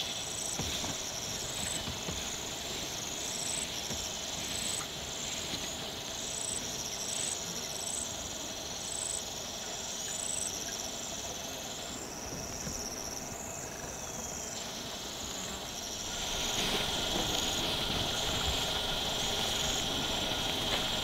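Evening bush ambience of crickets and other insects chirping steadily, with short repeated high chirps through the first half. About three-quarters of the way through, the chorus changes to a steadier, slightly louder hum.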